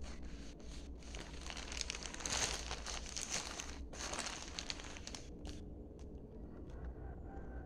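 Black plastic courier mailer pouch crinkling as it is handled and lifted. The crinkling is dense for about the first five seconds, then thins to a few scattered crackles.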